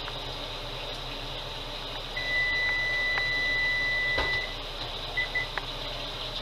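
An electronic kitchen-appliance beeper sounds one long steady beep of about two seconds, then three short beeps at the same pitch, over a steady fan hum with a few light knocks.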